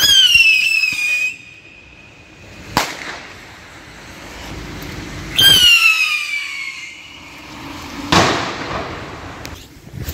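Two fireworks whistles, each sliding down in pitch over a second or two, each followed by a sharp bang: whistling rockets climbing and then bursting.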